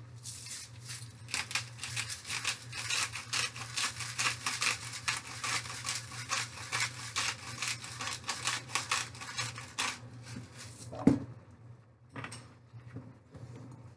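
Pink Himalayan salt being ground in a hand-twisted grinder: a fast run of gritty crunching clicks for about ten seconds, then a single knock.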